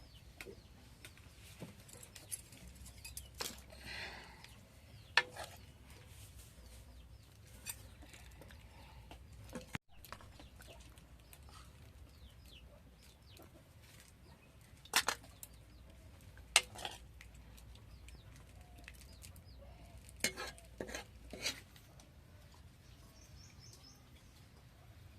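A few sharp knocks and clicks, some in quick pairs, with a chicken clucking briefly about four seconds in.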